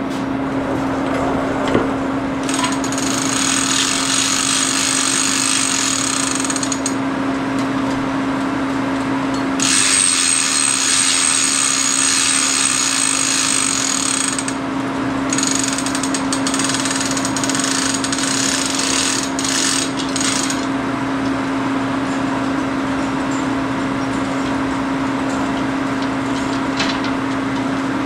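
Hand-chain hoist being hauled to lift a heavy angle plate: the chain rattles and clicks through the hoist in three long spells. A steady hum runs underneath.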